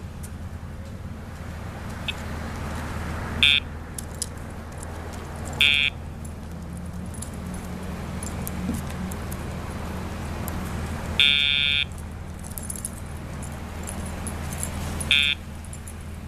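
Short electronic beeps from a remote dog-training collar's tone (the "sound box"), used as a cue to shape a dog that pulls on the leash: four beeps at uneven intervals, the third one longer, over a steady low hum.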